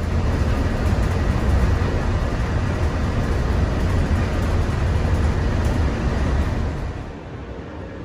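Walt Disney World monorail heard from inside the car while it travels: a loud, steady low rumble of running noise. It drops away about seven seconds in.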